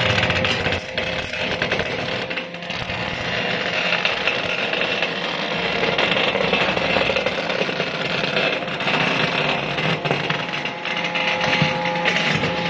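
Tire steel-wire separator running under load, tearing steel wire out of tire rubber with a continuous grinding, scraping clatter.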